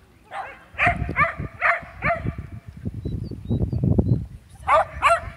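A dog barking in short, sharp barks: about five in quick succession, a pause, then two more near the end. Between them there is a low rumbling noise.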